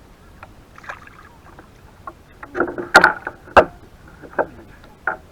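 Irregular knocks and clatter on a surf ski kayak as a hooked fish is brought aboard and handled. The two loudest strikes come about three seconds in, roughly half a second apart.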